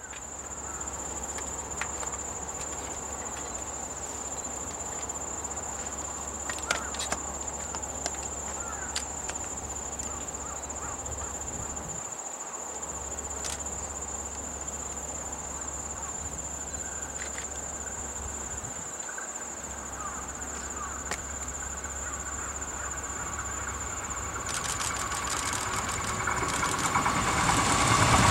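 Insects trill steadily in one high, unchanging tone. In the last few seconds an approaching Shinano Railway 115 series electric train grows steadily louder, with a rhythmic clicking from its wheels.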